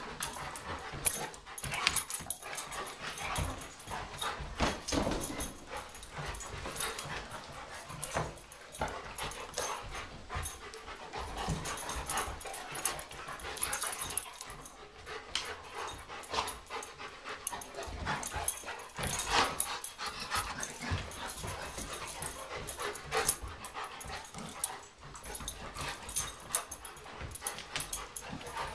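A Bernese Mountain Dog and a short-coated tan dog play-wrestling, with irregular scuffling, knocks and bumps and dog vocal noises.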